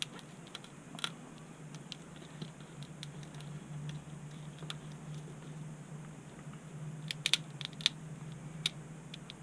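Light clicks and scratching of small phone parts and a plastic pry tool being handled, with a few sharp clicks about a second in and a cluster of them near the end, over a faint steady low hum.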